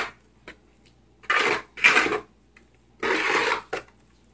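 Metal spatula stirring thick grout in a small plastic bucket, scraping through the paste in three short strokes, with a sharp click right at the start.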